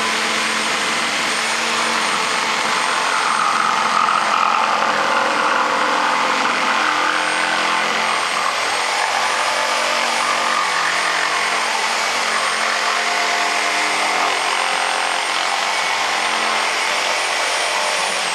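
Corded reciprocating saw cutting through a large PVC pipe: the motor runs steadily at speed with a constant high whine while the blade rasps through the plastic.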